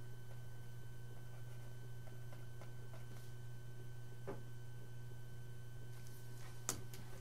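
A steady low electrical hum with faint steady tones above it, and a few faint clicks.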